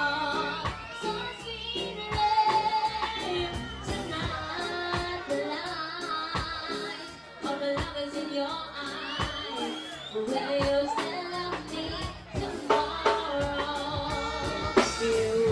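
A child singing into a microphone over reggae backing music with a steady drum beat, heard through a stage sound system.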